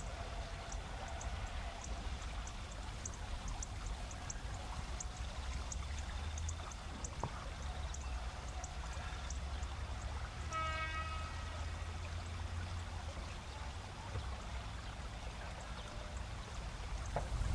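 Steady rush of river rapids with autumn insects chirping in quick high ticks. About ten seconds in, the old Ueda Kotsu electric car Moha 5271 sounds its horn once, a single pitched blast of about a second, signalling its departure from the station.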